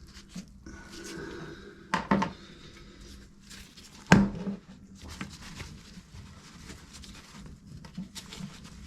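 Clinks and knocks of hard objects being handled during plumbing work, with a pair of clinks about two seconds in and one loud sharp knock about four seconds in.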